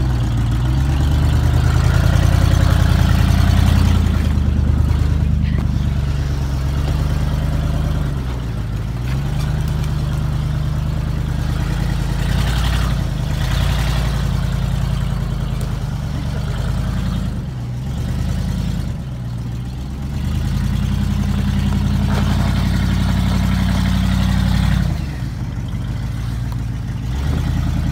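A lifted Ford Bronco's engine running at low speed under load as it crawls over rocks, the throttle easing off and coming back on several times.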